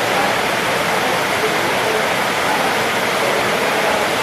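A steady, loud rushing hiss that does not change, with faint voices underneath.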